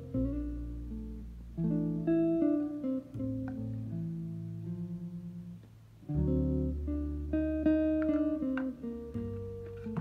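Background music: an acoustic guitar playing plucked chords that ring out and fade, one after another.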